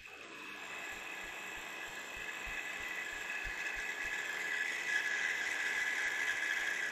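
End mill on a vertical milling machine taking a conventional-milling pass across the sawed end of a cold-rolled 1018 steel block, with cutting oil on the cut. A steady, high, whining cutting sound grows gradually louder as the pass goes on and drops away sharply at the very end.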